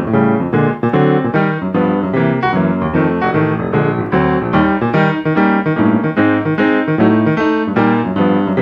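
Yamaha grand piano played solo in a jazz style: a walking bass line under off-beat chords at a steady, even pulse. It demonstrates four-beat accentuation, with every beat even and the weak beats felt inside each count.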